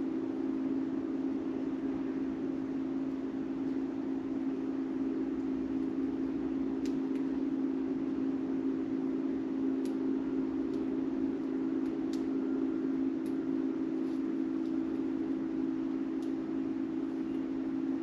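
A steady machine hum, even and unchanging, with a few faint short ticks scattered through it.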